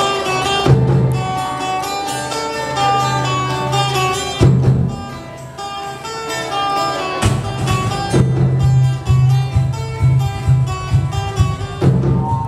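Acoustic band playing an instrumental passage: an acoustic guitar picking melody lines over low bass notes, with sharp percussion accents about a second in, around four and a half seconds, and near seven seconds, after which the playing gets busier.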